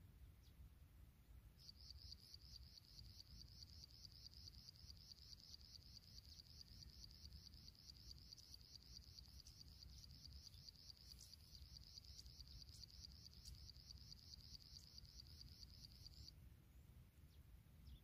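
Insect trilling: a steady, high, rapidly pulsed trill that starts about two seconds in and stops a little before the end, over a faint low rumble.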